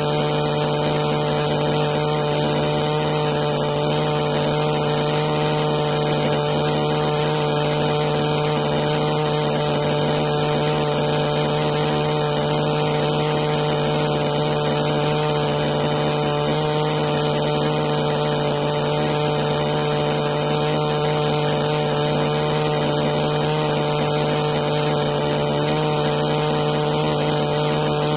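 Steady hum of the motors of the aircraft flying over the crater, holding one unchanging pitch with several steady tones over a haze of noise.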